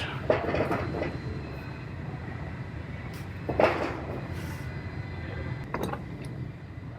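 Steel frame-bench clamps being set on the bench: a few knocks and clanks of metal, the loudest about three and a half seconds in, over a steady low hum.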